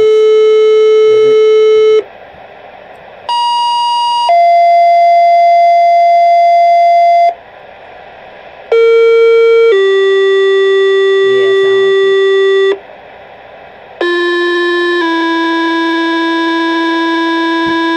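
Two-tone sequential fire-dispatch paging tones, the tone-out that sets off firefighters' pagers for a call, played through a Uniden BC75XLT handheld scanner's speaker. A long steady tone ends about two seconds in, then three more tone pairs follow, each a one-second tone stepping to a different tone held about three seconds, with short gaps between: several departments being toned out in a row.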